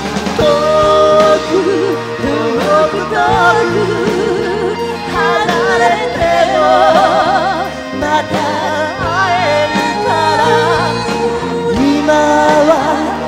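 Rock band playing a song: a singer's wavering, vibrato-heavy melody over bass, drums and keyboards, loud and continuous.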